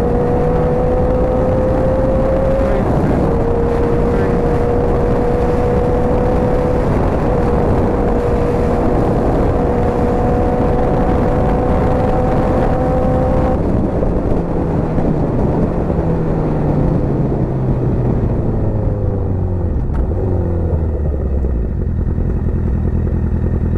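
Motorcycle engine under way with heavy wind rush: the engine note climbs slowly and drops back at gear changes about three and seven seconds in. From about fourteen seconds the note falls away as the bike slows.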